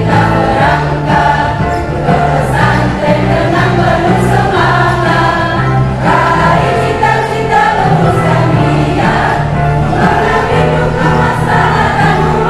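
Mixed choir of men and women singing together, carried over held bass notes of a backing accompaniment.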